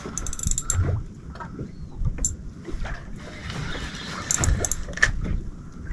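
Wind buffeting the microphone and water lapping against a small boat's hull, with irregular low knocks and scattered sharp clicks from a fishing rod and reel being handled and wound; a quick run of rapid clicks comes just after the start.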